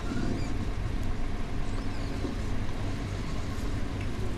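A steady low engine rumble, even in level throughout.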